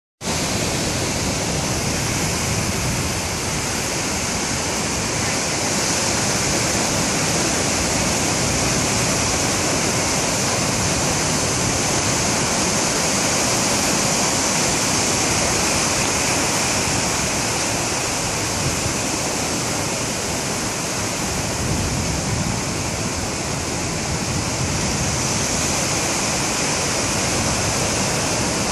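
Ocean surf washing onto the beach: a steady, continuous rushing hiss with no separate breaks standing out.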